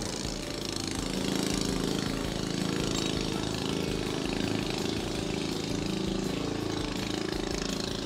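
An engine running steadily at a constant speed, a continuous mechanical drone.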